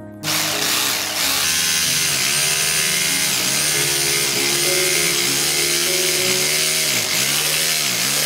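Electric jigsaw switched on just after the start and cutting through a wooden board, its motor running loud and steady with a regular wavering in pitch.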